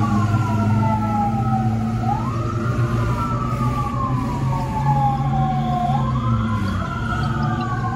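Fire engine siren wailing: each cycle rises quickly, then falls slowly over about four seconds before rising again, with a second siren tone overlapping near the end. A low vehicle engine drone runs beneath.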